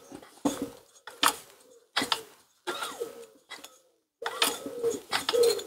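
Small vintage Tecumseh engine turned over by hand at its finned flywheel: a series of short metallic clicks and scrapes, one every half second to a second, some with a faint squeak.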